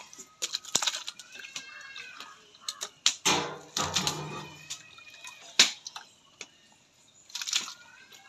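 Raw chicken pieces dropped by hand into a large pot of spiced cooking liquid, splashing and plopping several times, the biggest splash about three to four seconds in. Birds chirp faintly in the background.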